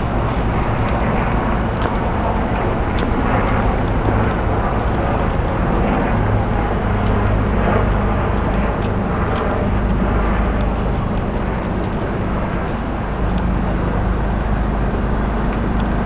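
Steady low rumble of city traffic, with a constant low hum underneath.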